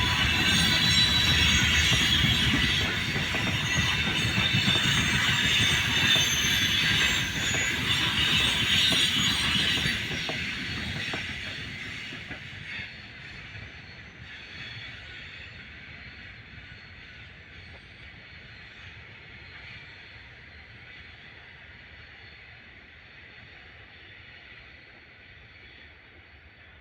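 Freight train rolling past on the rails, with wheel noise and some wheel squeal, then fading steadily after about ten seconds as the train draws away.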